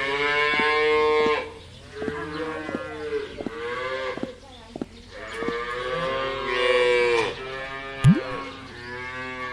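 Cow mooing, about four long drawn-out moos in a row, with light sharp knocks between them and one louder click near the end.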